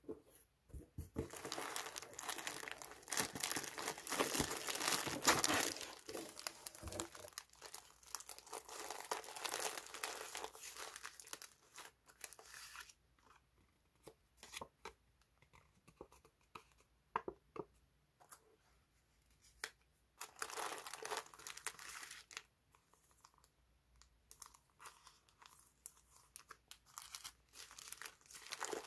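Paper and plastic packaging being handled while a parcel is unpacked: crinkling and rustling of white slit-cut wrapping paper and clear sticker sleeves against a cardboard box, with small ticks of fingers and nails on paper. The rustling is thickest in the first dozen seconds and again about twenty seconds in, with sparser handling noises between.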